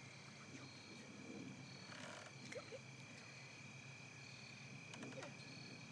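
Quiet outdoor ambience near silence: a faint steady high tone with a few faint short calls about two seconds in and again near the end.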